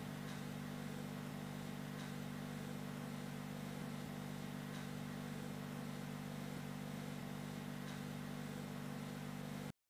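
Steady low hum with a faint hiss, unchanging, cutting off abruptly near the end.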